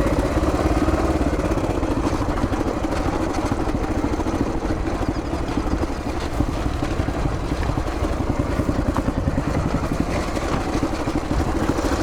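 1981 Yamaha XT500's air-cooled single-cylinder four-stroke engine running steadily under way on a dirt track, its firing pulses thumping evenly, with a brief easing of the throttle about halfway through.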